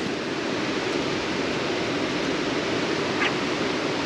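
Steady rush of flowing creek water, with one brief higher-pitched blip about three seconds in.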